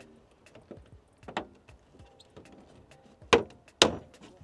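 Car door handle being worked free of a Subaru door: small clicks and a knock, then two loud sharp clacks close together near the end as the handle comes loose.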